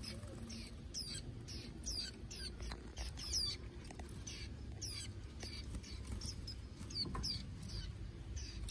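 Young white-eyes chirping: thin, high, falling chirps at about two a second.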